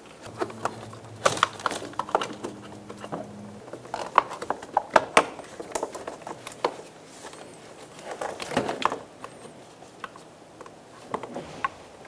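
Scattered plastic clicks and knocks in irregular clusters as a car door trim panel's electrical connectors are pried loose with a small flathead screwdriver. A low steady hum stops about a third of the way in.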